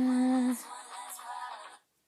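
Pop music playing, with a loud steady held vocal note for the first half second; the music cuts off suddenly near the end.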